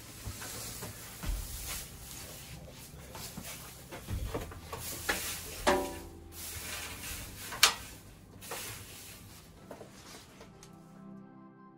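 Goats moving about on straw bedding: rustling and shuffling with scattered knocks and clicks, the sharpest and loudest about two-thirds of the way through. Soft music comes in near the end.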